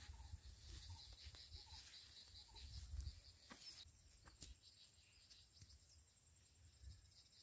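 Faint outdoor ambience: insects trilling steadily and high-pitched, with a low rumble that dies away a little under halfway through and a couple of faint clicks.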